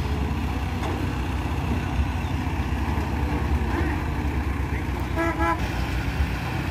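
Heavy diesel engines of a Caterpillar tracked excavator and a small dump truck running steadily as the excavator loads the truck. About five seconds in, a vehicle horn toots once, briefly.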